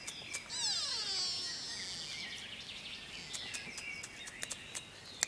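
A high bird call falling in pitch about a second long, then a faint high hiss with scattered small clicks and ticks.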